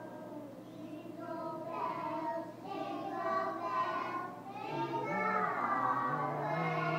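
A group of young children singing a Christmas carol together, the singing growing louder over the first couple of seconds.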